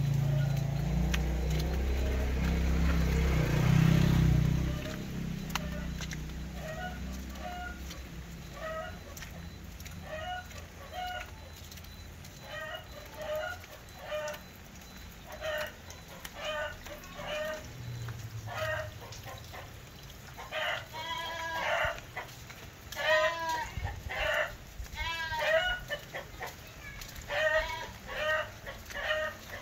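A low rumble for the first few seconds, then chickens clucking: a run of short calls every second or so, with louder, longer calls that bend in pitch in the second half.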